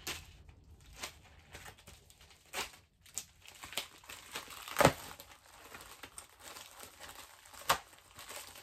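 Plastic mailer packages and black plastic bags crinkling and rustling as they are handled and one is cut open with a small knife, with a few sharp crackles, the loudest about halfway through and another near the end.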